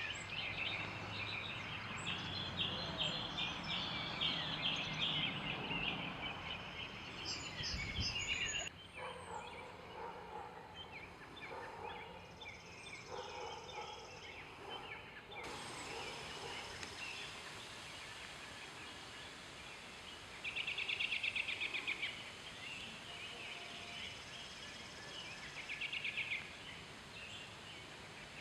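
Lovebirds chattering and chirping, with two louder bursts of rapid trilling in the last third, over a steady background of traffic noise.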